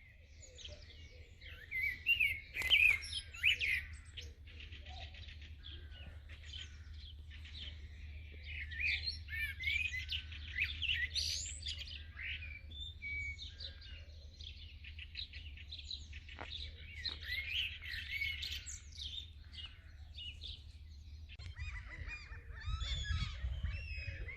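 Several songbirds singing at once, a dense overlapping mix of chirps, trills and whistles, over a low steady rumble that grows louder near the end.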